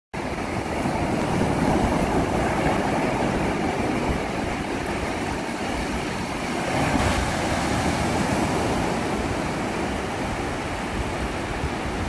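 Rough sea surf breaking over rocks, a continuous rushing wash of waves that swells a little now and then.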